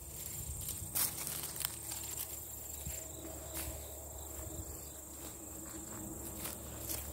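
Insects droning steadily at a high pitch, with a few brief clicks and rustles, about a second in, in the middle and near the end.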